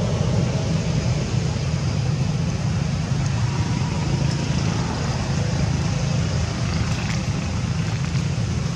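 Steady low rumbling background noise, with no animal calls standing out and a few faint clicks near the end.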